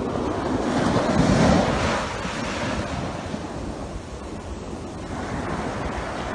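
Rushing noise of surf and wind, swelling about a second in and easing off after two seconds.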